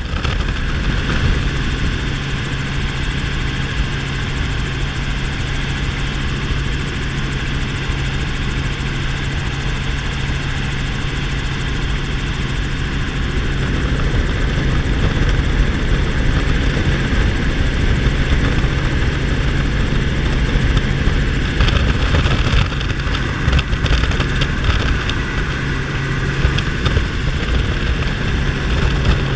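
Small helicopter in flight, heard from inside the cabin with the doors off: steady rotor and engine drone mixed with rushing wind through the open doorway. There are a few brief gusts about three-quarters of the way through.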